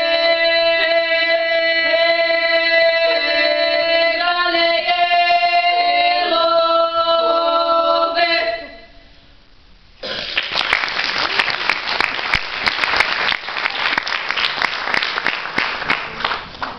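Two women's voices singing a Serbian folk song unaccompanied, holding long notes; the final note fades out about eight and a half seconds in. After a short quiet gap, audience applause breaks out about ten seconds in and continues.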